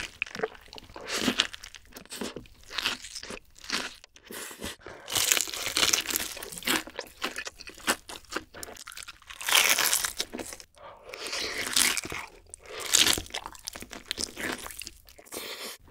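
Close-miked eating of fried chicken and a crispy chicken burger: loud, irregular crunches as the breaded crust cracks with each bite, with chewing in between.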